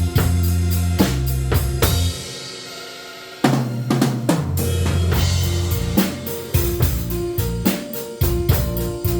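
Instrumental pop music with a drum kit, bass drum and snare, played over keyboard and a deep bass line. About two seconds in the bass and drums drop out briefly, then come back with a hard hit about three and a half seconds in.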